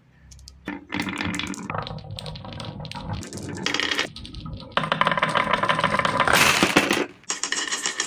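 Marbles rolling and rattling through carved wooden marble-run tracks, with a dense run of clicks and clacks as they knock against the wood and each other. It breaks off briefly a little after halfway, then comes back busier and louder.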